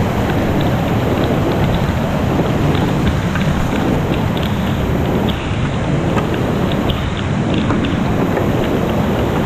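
Rushing whitewater heard close up from a kayak running a narrow, rocky creek chute: a loud, steady rush of water, with many faint ticks of splashes and drips throughout.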